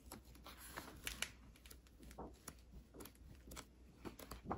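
Pages of a large hardcover picture book being turned by hand: faint paper rustles and soft flicks, several in quick succession.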